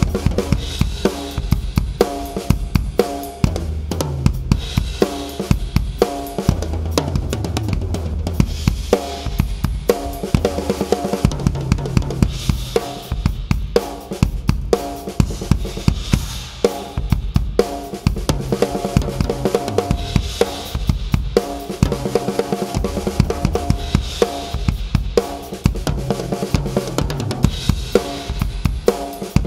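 Acoustic drum kit played in a steady groove: bass drum, snare and cymbals struck in a dense, regular pattern.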